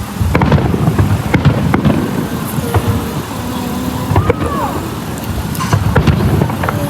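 Fireworks going off in the distance: scattered pops and cracks over a steady low rumble, with a short rising and falling whistle about four seconds in.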